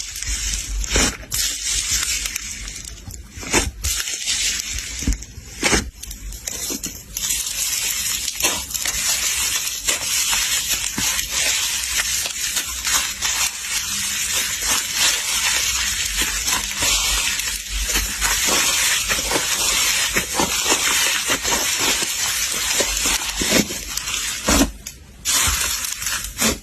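Slime being squeezed and worked by hand, giving a dense, continuous crackling with many small pops and clicks, briefly dropping away near the end.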